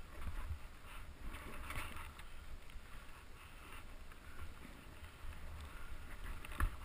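Snowboard sliding and carving over snow, an uneven hiss with wind rumbling on a helmet-mounted camera microphone. A short knock near the end.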